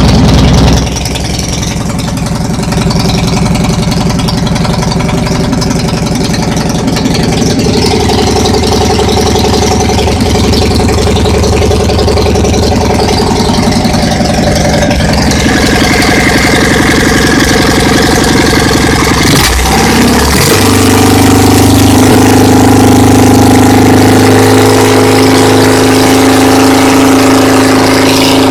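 Dnepr motorcycle's rebuilt 650 cc flat-twin engine, with a lightened flywheel, running on its first start after a full overhaul. It is loudest in the first second, then settles into idling, and its speed shifts a few times. About twenty seconds in the running wavers briefly, then it runs steadily again at a slightly higher level.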